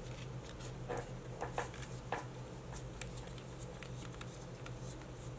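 Clear plastic nail tips clicking against each other as they are picked through by hand and sorted by size, with a few louder clicks about one to two seconds in.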